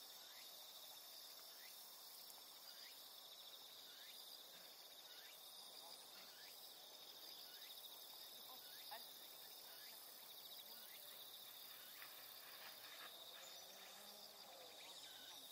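Faint, steady high trilling of insects chirring in the grass, with short falling chirps repeating over it.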